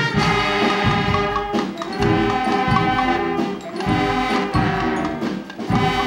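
A Guggenmusik carnival band playing loudly: trumpets, trombones and saxophones in held, brassy chords over drum beats.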